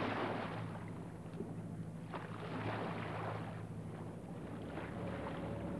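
A boat engine running steadily with a low hum, with rushing washes of sea water coming and going over it.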